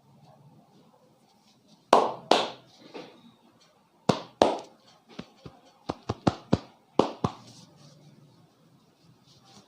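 Sharp hand slaps and claps of a barber's head massage, about a dozen strokes. Two loud ones come about two seconds in and a pair near four seconds, then a quick run of about eight over the next two and a half seconds.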